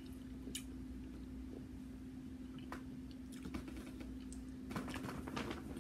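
Faint, scattered clicks and crackles of seafood shells being handled and eaten, with chewing, thickening into a cluster near the end, over a steady low hum.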